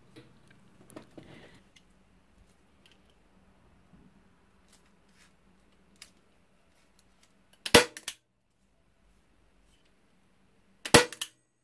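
Manual staple gun firing staples through twine into a wooden backing: two sharp snaps about three seconds apart, with faint handling noise between.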